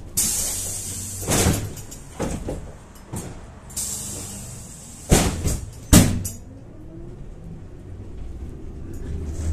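Cabin noise of a Kyiv-12.03 trolleybus under way: two bursts of hiss, near the start and at about four seconds, and a series of sharp knocks and rattles of the body, the loudest two at about five and six seconds. A low steady hum runs underneath.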